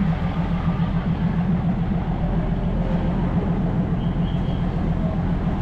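Engine running steadily: a loud low hum with a fast, even pulse.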